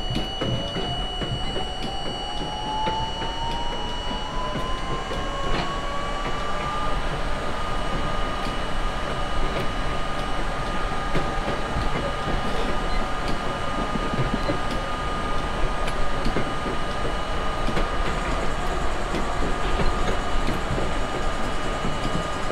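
R32 subway train running on the rails. Its motor whine rises in pitch for about the first seven seconds as the train picks up speed, then holds steady over the rumble and clatter of the wheels.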